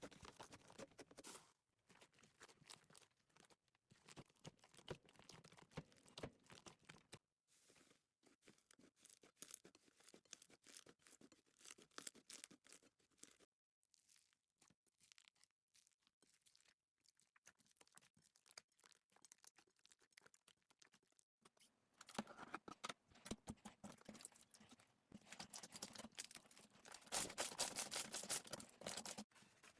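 Slime being worked, a quiet run of sticky crackles and small pops that grows louder in the last several seconds.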